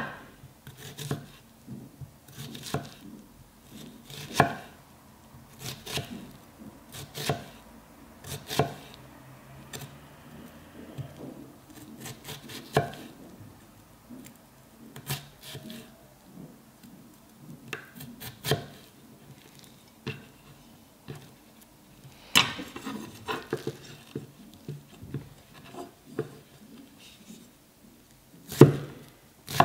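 Bunka kitchen knife slicing an onion on a wooden cutting board: slow, unevenly spaced strokes about a second apart, each ending in a knock of the blade on the board. Two louder knocks stand out, one about two-thirds through and one near the end.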